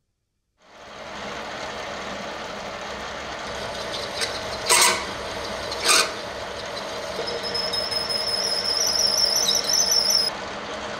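Milling machine spindle starting up and running steadily, with two brief sharp scrapes around five and six seconds in as the cutter touches a flat metal bar. From about seven seconds in a high, wavering squeal of the cutter cutting into the bar, stopping shortly before the end.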